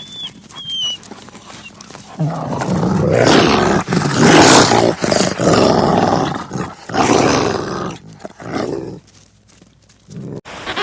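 A large animal roaring and growling in a series of loud, rough bursts over several seconds, dying away near the end.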